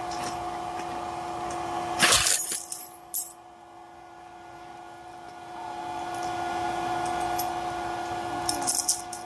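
Bundled shock-corded tent poles clattering onto the ground about two seconds in, followed later by a few light clicks as pole sections are pulled apart and snapped together, over a steady hum.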